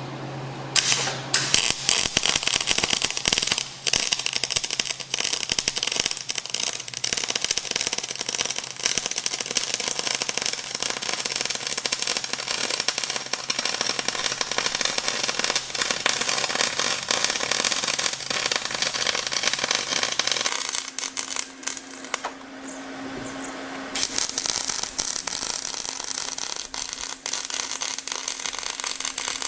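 Wire-feed (MIG) welding arc from a Lincoln welder crackling and sizzling steadily as a bead is run on the heavy steel of a Cat D5C dozer's blade ball. The arc stops about 20 seconds in and strikes again about three seconds later.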